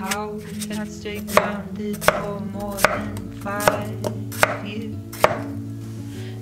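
Kitchen knife chopping green-fleshed melon on an end-grain wooden cutting board: about six sharp knocks of the blade on the board, roughly one every three-quarters of a second.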